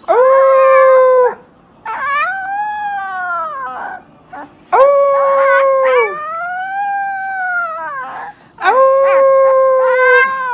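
Husky puppy howling: four long howls, some held on one pitch and others rising then falling away.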